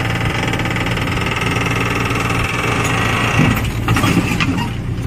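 Diesel engine of an L&T Case backhoe loader running steadily, heard from inside its cab, with a harsher higher-pitched noise over it that drops away about three seconds in.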